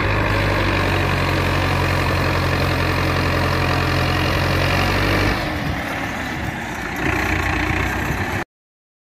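Farmtrac diesel tractor engine running steadily while pulling a loaded trailer; its low note drops away about five seconds in and picks up again about two seconds later. The sound cuts off abruptly near the end.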